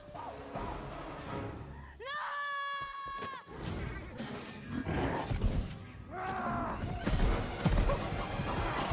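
Film soundtrack of a hunt on horseback: music under a long, shrill cry about two seconds in and a shorter cry about six seconds in, with rumbling and thuds building toward the end.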